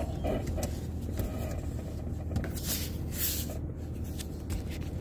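Car engine idling, heard from inside the cabin: a steady low hum with a few faint clicks and rustles over it.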